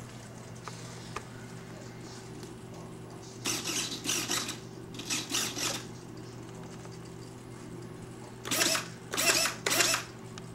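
Small servo motors in a radio-controlled model helicopter whirring in short bursts as the camera turret is swung. There are two bursts a few seconds in and three quick ones near the end, over a steady low hum.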